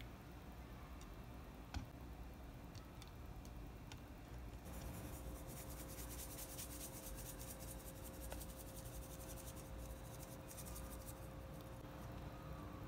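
Salt and pepper being sprinkled over tofu cubes: a dense run of fine crackling clicks that starts about five seconds in and lasts about six seconds. Before it, a single knock just under two seconds in as the tofu is handled.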